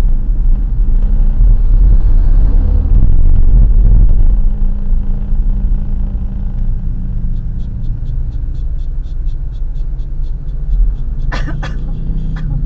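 Engine and road rumble inside a moving car's cabin, swelling louder for a couple of seconds early in the drive. Later a rapid, regular high ticking runs for about three seconds, followed near the end by a couple of short sharp sounds.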